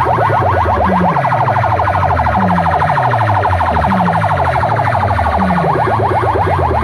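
A loud DJ sound system blasting an electronic siren-like track: a rapid pulsing, buzzing tone over a deep bass note that slides downward and repeats about once a second.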